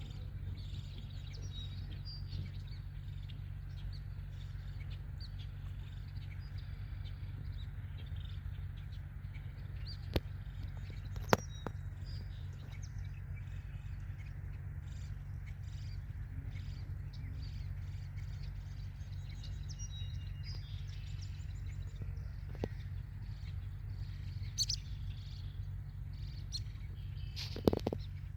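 Ducklings dabbling at the pond surface: small chirps and light bill-and-water clicks over a steady low rumble. A few sharper clicks stand out, the loudest about eleven seconds in and another near the end.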